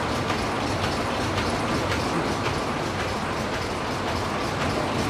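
Automatic ultrasonic face mask machine running at high speed: a steady mechanical clatter with a regular click about twice a second.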